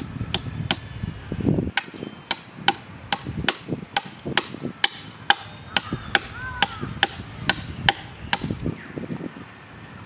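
Small hatchet chopping into a coconut palm trunk: a steady run of sharp knocks, about two to three a second, that stops shortly before the end.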